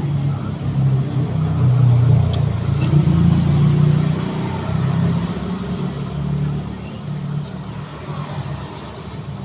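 A motor vehicle's engine running close by, growing louder for the first few seconds and then slowly fading, as when a vehicle passes.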